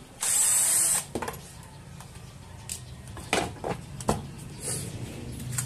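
Cordless drill driver spinning briefly as it backs out a screw from a power supply's sheet-metal case, followed by a few sharp clicks and knocks as the metal cover is handled and lifted off.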